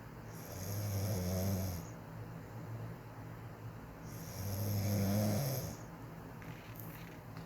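A woman snoring quietly in her sleep: two low snores about four seconds apart, each lasting about a second and a half.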